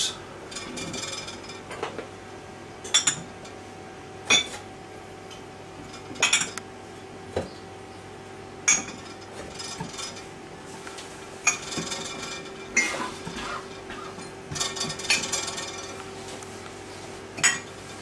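Ceramic mugs and cups set down one after another into a dishwasher's plastic rack, a string of separate sharp clinks and knocks every second or two, with a faint steady hum underneath.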